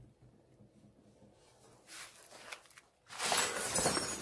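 Pan of used engine oil scraping and rustling as it is dragged out from under the truck. The scraping starts suddenly about three seconds in, after a quiet stretch.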